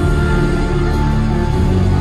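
Loud show music playing through a concert sound system, with heavy, steady bass.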